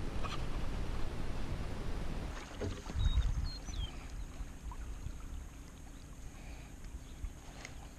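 Sounds of a fishing kayak on the water: a steady rushing noise that drops away after about two seconds, then a dull knock about three seconds in, followed by a few short high chirps.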